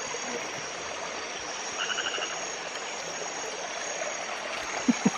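Night rainforest ambience: a steady high drone of crickets and other insects over the hiss of flowing stream water. A short, rapid pulsed call sounds briefly about two seconds in.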